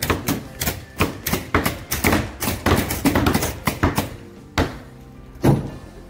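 Pneumatic nail guns firing in quick succession, driving nails into solid-wood subfloor boards, with background music. The rapid shots, about three a second, stop about four seconds in, followed by two spaced shots, the loudest near the end.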